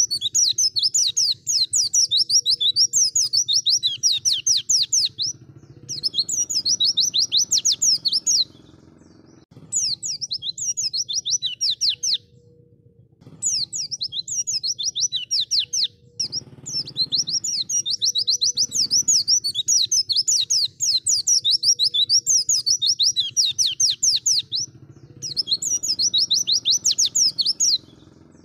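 White-eye (pleci) singing: long phrases of very fast, high chattering notes, broken by short pauses every few seconds.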